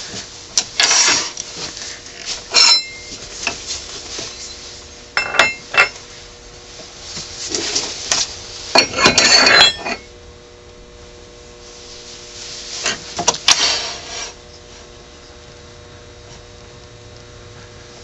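Metal clinks and scrapes of a wood lathe's tool rest being loosened and lifted out of its holder, and a longer tool rest set in and locked in its place. The clatter comes in several separate bursts up to about three-quarters of the way through.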